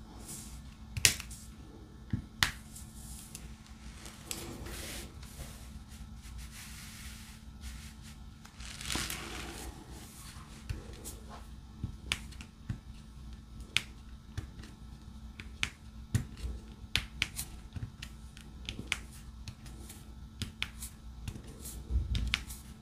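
Drill pen tapping diamond painting drills onto the canvas: short, sharp clicks at irregular spacing, a few louder than the rest, over a faint steady hum.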